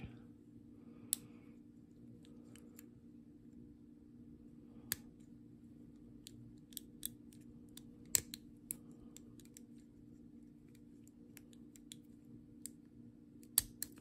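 Steel picking wires working inside a small brass lever padlock: scattered light metallic clicks and ticks as the levers and bolt are felt for, with a sharper click near the end.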